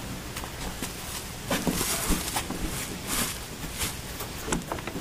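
A large hollow polyethylene septic tank being pushed and rolled by hand over dirt: irregular knocks and thuds from the plastic shell, scuffing footsteps and short scraping rubs, loudest about one and a half to two seconds in and again around three seconds.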